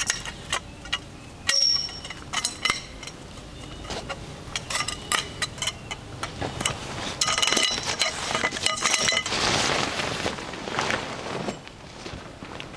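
Camp dishes and utensils clinking and clanging together, many light strikes with short ringing tones, clustered rapidly around the middle. A brief rushing noise follows about nine seconds in.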